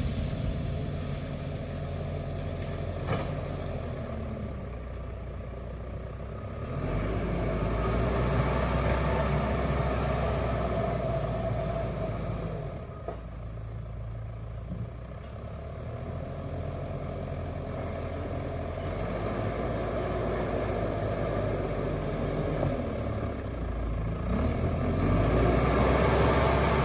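A heavy construction machine's diesel engine runs steadily and works harder in stretches. It grows louder about a quarter of the way in, eases off in the middle and picks up again near the end.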